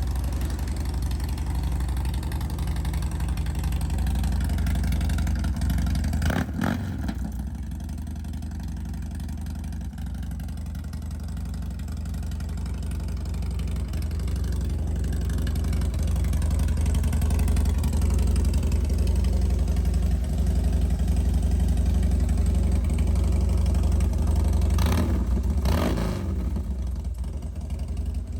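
Harley-Davidson Dyna V-twin running through a newly installed aftermarket exhaust, mostly idling steadily with a deep exhaust note. There is a short throttle blip about six seconds in and two more close together near the end.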